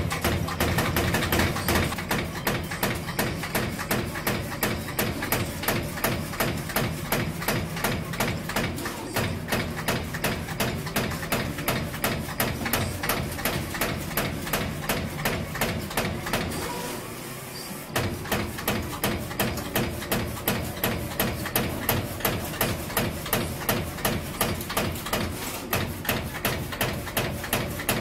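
Amada EM 2510 NT CNC turret punch press punching in a fast, even run of hits. It pauses briefly about seventeen seconds in, then resumes at the same pace.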